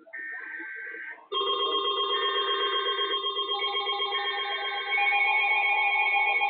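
Weather-alert radio receivers sounding their electronic alarms: a short steady high tone, then from about a second in several steady alarm tones layered together with a fast pulsing warble. More tones join as it goes, and it gets louder near the end.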